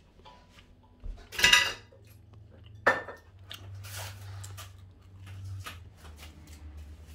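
Kitchenware being handled on a counter: a loud clatter about a second and a half in, a sharp knock near three seconds, then lighter clinks and handling noise. A low steady hum sits underneath.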